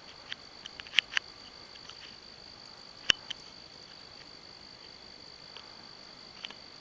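A steady, high-pitched chorus of crickets, with a few short sharp snaps: two about a second in and the loudest about three seconds in.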